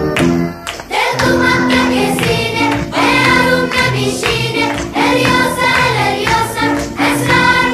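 Music: a chorus of voices singing in unison in Persian over a rhythmic instrumental backing. The voices come in about a second in, after a brief dip in the backing.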